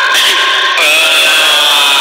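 A young child crying loudly in long, high wails, a new wail starting a little under a second in and rising slightly in pitch.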